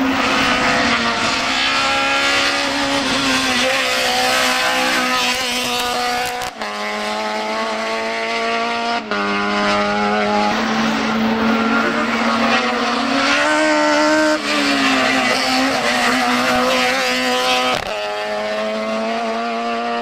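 Hill-climb race car engine running at high revs, its pitch holding high and wavering as the car climbs, with brief sharp cuts at gear changes, three times.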